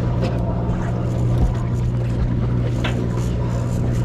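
Sportfishing boat's engine running with a steady low drone, with a few short knocks on top.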